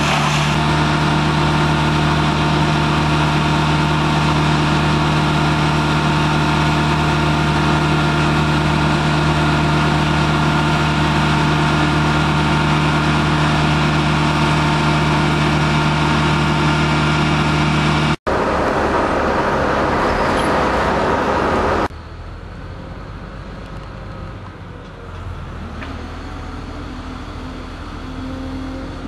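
An engine running steadily at a constant speed. After abrupt cuts about 18 and 22 seconds in, a quieter engine remains, rising and falling in pitch near the end.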